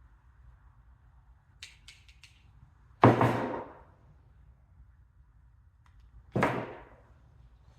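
Hand tools being worked and set down: four quick clicks, then two sharp knocks about three seconds apart, each ringing off briefly.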